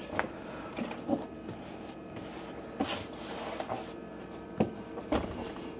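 Quiet handling of a portable generator on a workbench: a cloth rubbing its plastic casing, with a few light clicks and knocks.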